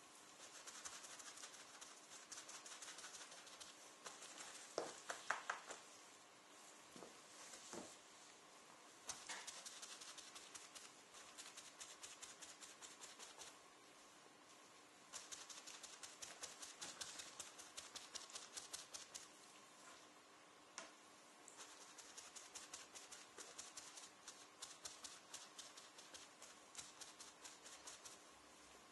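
Sponge dabbing leather dye onto a leather jacket sleeve: faint, rapid soft taps in runs of a few seconds, with short pauses between runs.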